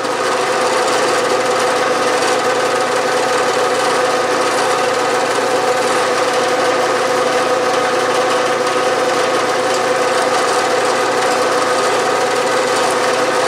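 Bridgeport milling machine spindle running steadily with an even hum, while a center drill in its chuck is fed into a metal bar to spot a hole.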